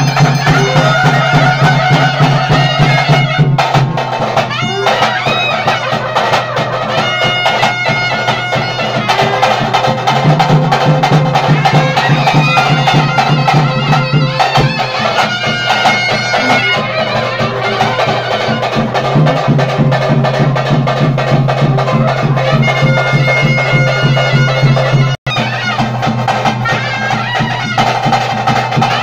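Loud traditional Indian ritual music: a reedy wind instrument plays a melody over a steady low drone, with drums beneath. The music runs without a break apart from a split-second drop-out near the end.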